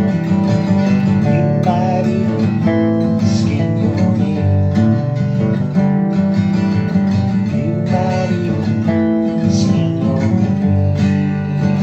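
Instrumental stretch of a song with no vocals: strummed acoustic guitar, with a few wavering lead notes over it.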